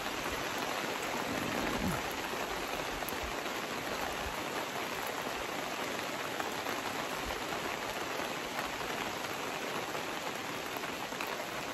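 Steady rain falling on a canopy tent and the ground around it: a continuous even hiss with a few scattered drop ticks.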